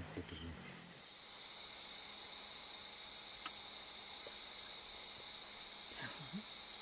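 Steady chorus of night insects in African bush, a high continuous trill with a fast pulsing shimmer above it. The chorus changes character about a second in.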